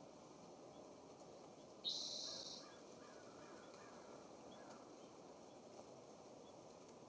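A single harsh, raspy bird call, under a second long, about two seconds in, over faint steady outdoor background noise.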